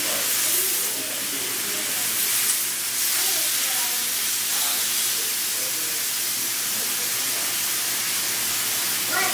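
Raw chicken strips sizzling in hot olive oil in a skillet: a steady hiss that swells briefly as pieces are laid in, about half a second in and again after about two seconds.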